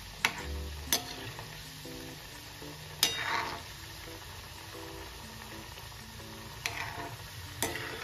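Shankarpali dough pieces deep-frying in hot oil in a kadhai: a steady sizzle. A perforated slotted spoon stirs them and taps against the pan a few times, loudest about three seconds in.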